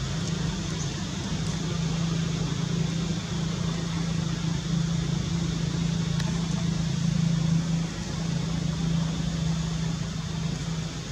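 A steady low motor hum with an even hiss behind it.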